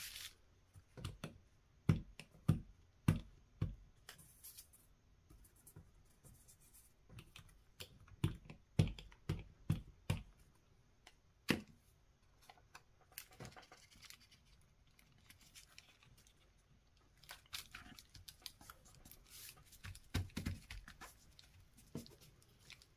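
Paper craft pieces being handled and pressed down on a tabletop: scattered taps and knocks, some with a dull thump, between short stretches of paper rustling.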